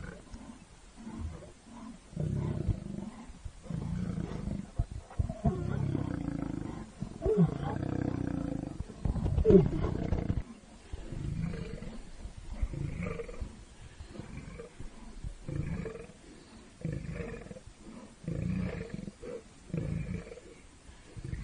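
Male lions roaring: long, loud roars through the first half, then a regular series of short grunts about one a second, the usual close of a lion's roaring bout.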